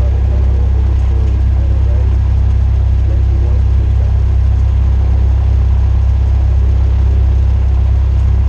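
Cessna 172R's four-cylinder Lycoming IO-360 engine and propeller running with a steady, loud low drone, heard inside the cabin.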